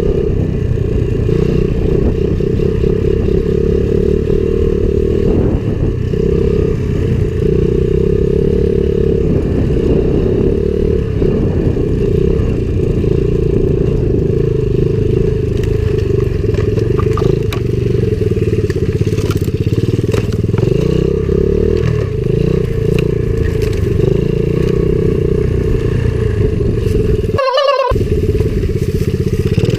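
Small Chinese 70cc pit bike engine running steadily under throttle while being ridden. The sound drops out briefly near the end.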